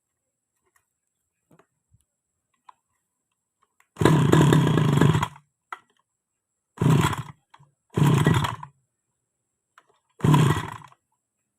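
Grass-cutter engine pull-started four times in a row, each pull a loud burst of about a second, the first one the longest.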